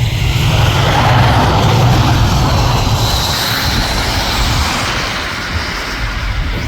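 Vehicle road noise on snowy roads: a loud, even rush that swells in the first second or so, then slowly fades.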